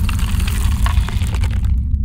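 Logo-intro sound effect of a deep rumbling boom with crackling, crumbling debris; the crackle cuts off near the end while the low rumble fades away.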